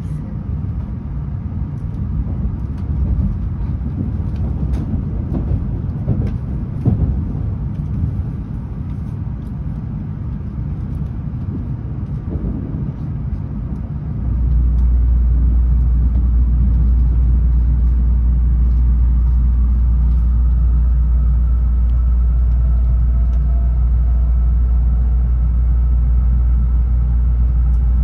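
Shinkansen bullet train running, heard from inside the passenger cabin: a steady rumble with faint clicks. About halfway through it turns abruptly into a much louder, even, deep rumble.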